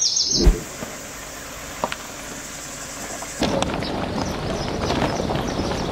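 A dull thump about half a second in. From about three and a half seconds, a car drives along a dirt road: a steady rumble of road noise with scattered crackles of gravel under the tyres.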